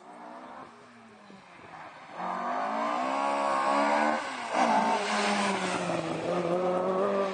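Mk2 Ford Escort rally car's engine at full throttle, faint at first, then loud from about two seconds in with its pitch climbing as it accelerates. Just past four seconds in the pitch drops sharply, then it holds loud and fairly steady as the car comes closer.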